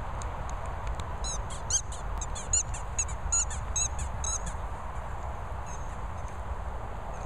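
Squeaker in a dog toy squeaked over and over as a terrier bites down on it: a quick run of short, high squeaks from about a second in to about halfway, then a few fainter ones.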